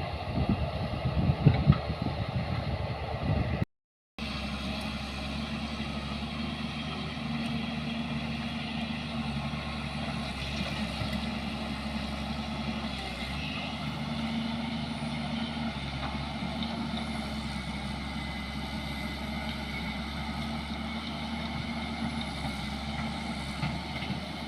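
A vehicle engine running at a steady drone, with a short dropout to silence about four seconds in; the first few seconds before it are louder and rougher.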